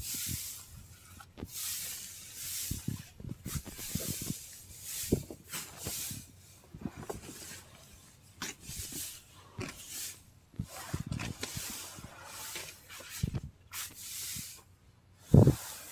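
Dry straw bedding rustling and crackling in irregular bursts as hands dig through it, with a short low thump near the end.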